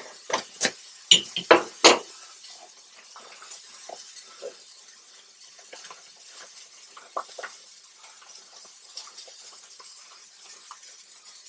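Plastic sous vide bag crinkling and crackling as it is pulled open and handled, sharpest and loudest in the first two seconds, then lighter scattered rustles and clicks.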